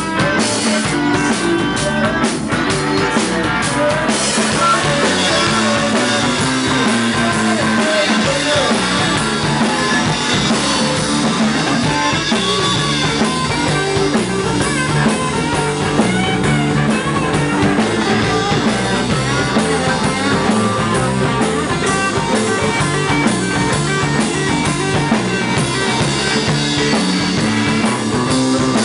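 A rock song playing, with drum kit and electric guitar keeping a steady beat.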